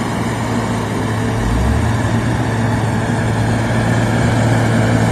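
A motor vehicle's engine running steadily, a constant low hum over an even rushing noise.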